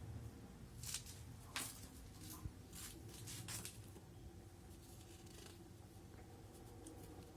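Sheets of animation paper being handled, giving a few short dry rustles and scrapes in the first half over a faint steady low hum.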